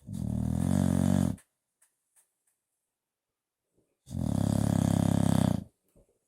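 Bulldog snoring loudly while asleep: two long, fluttering snores about four seconds apart, with near quiet between them.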